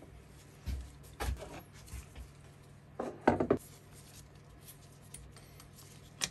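Steel parts knocking and clinking as a solid block and an Allen key are handled and set on a mini lathe's cross slide: a few separate knocks, the loudest cluster about three seconds in, and a sharp click near the end.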